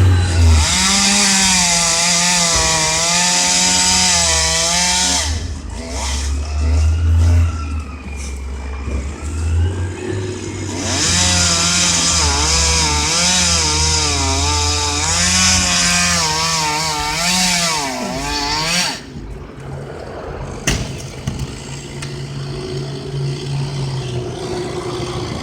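Two-stroke chainsaw cutting at high revs in two long spells, its engine pitch wavering as the chain loads in the wood. Between the cuts and after about 19 seconds it runs quieter.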